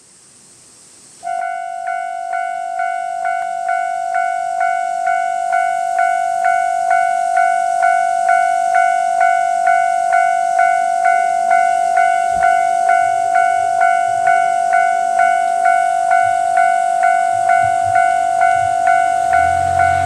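Japanese level crossing warning bell starting up about a second in and ringing steadily at about two strikes a second, over a steady high hiss. A low rumble grows underneath near the end.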